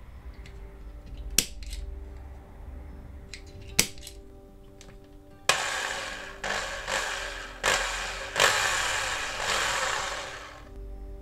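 Two sharp clicks as a pointed tool dimples the domed rivet on a die-cast car's base. Then a Bosch electric drill starts up several times in quick succession, about halfway through, and grinds into the rivet to drill it out.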